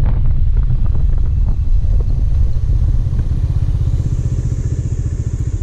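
Motorcycle engine running under way, a rapid, even low thump close to the mic. It gets a little quieter near the end as the bike slows.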